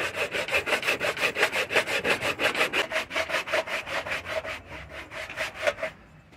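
Hand saw cutting through thick plastic in fast, even back-and-forth strokes, finishing by hand a cut that a circular saw took only halfway through. The strokes fade and stop about six seconds in.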